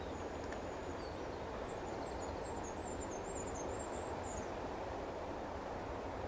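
A small bird singing a thin, high-pitched warbling twitter for about four seconds, over a steady low outdoor rush.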